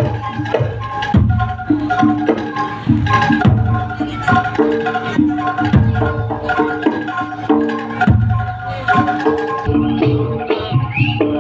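Live traditional percussion music: pitched, xylophone-like notes in a repeating pattern over regular deep drum strikes.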